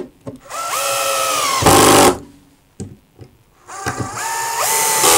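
Cordless drill driving wood screws through a sled's plywood base into its fence: two runs of motor whine that climb in pitch as the trigger is squeezed, the first ending in a short louder burst as the screw seats.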